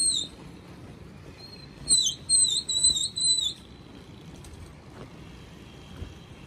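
Shrill whistles of short notes with a dipping pitch, one at the very start and a run of about five about two seconds in: a pigeon keeper whistling to his flock in flight.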